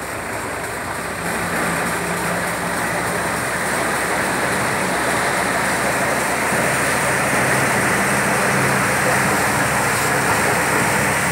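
Tractor-driven NVT multicrop thresher running under load: a steady, dense mechanical rumble and rush of crop going through the machine, with a low engine hum beneath, growing a little louder over the first couple of seconds.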